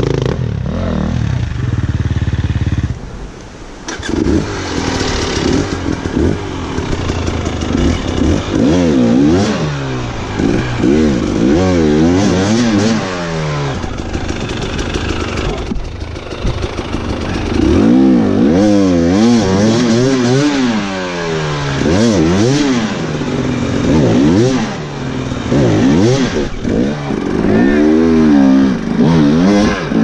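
Dirt bike engines climbing a rocky trail. A steady engine note dips briefly about three seconds in, and the revs then rise and fall over and over, about once a second.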